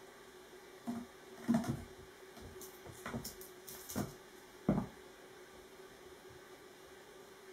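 Bengal kittens' paws landing and scuffing on wooden floorboards as they play. There are about five light thumps and scrabbles in the first five seconds, over a faint steady hum.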